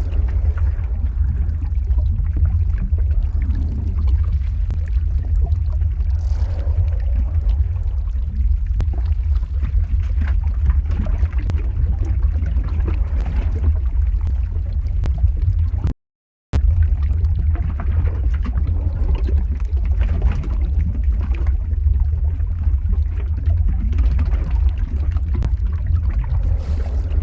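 Lava flow ambience sound effect: a steady deep rumble with bubbling, gurgling and scattered crackles. It cuts out to silence for about half a second, around sixteen seconds in.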